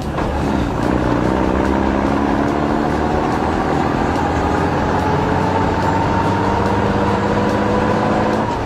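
Heavy vehicle's engine running steadily, its pitch rising slowly.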